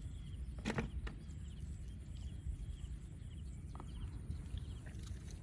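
Outdoor ambience with a steady low rumble, a short high chirping call repeated about once a second, and a single sharp knock or splash just under a second in.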